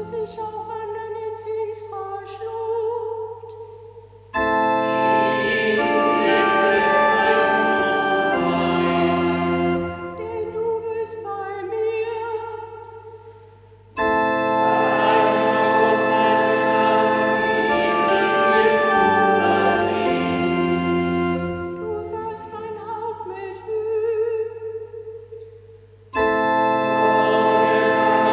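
Church organ playing a hymn with a singing voice, in repeated phrases. Quieter stretches where the voice's wavering line stands out alternate with sudden full entries of the organ about four, fourteen and twenty-six seconds in.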